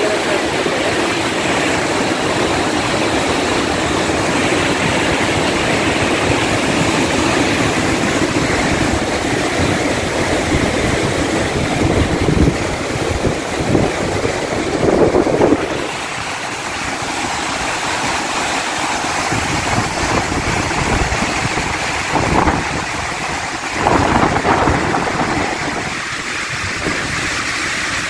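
Muddy flood water of the Marpha Khola and Kali Gandaki rushing in a steady roar, a heavy flow laden with mud and silt. Wind buffets the microphone a few times in the second half.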